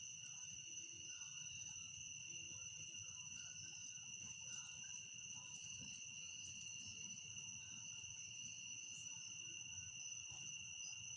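Faint, steady chorus of crickets, one unbroken high pitch, with a low rumble beneath it.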